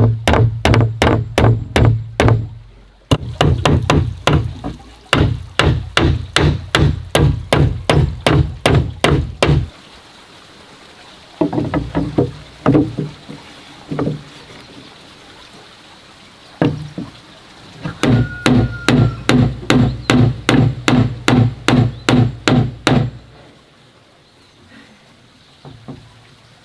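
Claw hammer driving nails into wooden planks, steady strikes about two to three a second in several runs broken by short pauses, stopping for good about three-quarters of the way through.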